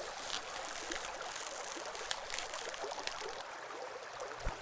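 A creek's water trickling and running steadily, with a few brief ticks.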